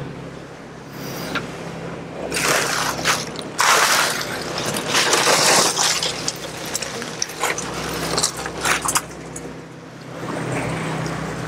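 Scraping, knocking and splashing as a boat's deck fish box lid is lifted and the box is handled, loudest in a run of bursts from about two to six seconds in. Under it the boat's engine hums steadily.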